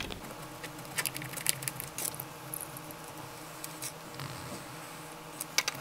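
Pencil scratching on drawing paper in short strokes, with clusters of light ticks about a second in and again near the end.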